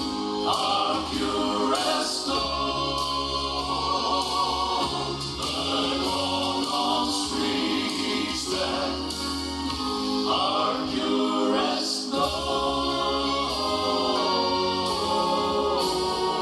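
Gospel vocal group singing in harmony, with a steady bass underneath.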